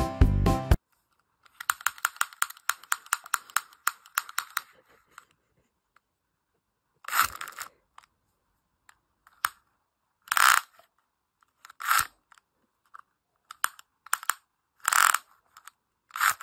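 Small plastic pull-out gadget ratcheting as a thin strip is drawn out of it: a fast run of clicks for a few seconds, then a series of short separate clicking bursts. Music plays for under a second at the start.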